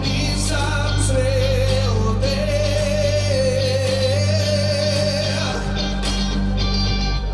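Music with a singing voice holding long, drawn-out notes over a steady bass.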